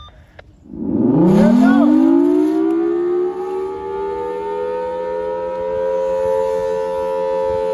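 Federal Signal Thunderbolt 1003 tornado siren starting up on a test about a second in: its pitch rises over about two seconds, then settles into a loud, steady chord of tones.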